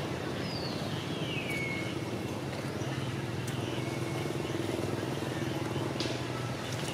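A steady low hum like an engine running in the distance. Over it come a few short falling whistles, the first about half a second in.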